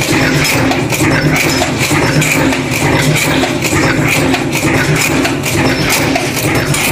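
Multi-station cold-forging bolt former running at production speed, making double-end studs. A steady machine hum lies under a fast, rhythmic metallic clatter of the transfer fingers and dies striking.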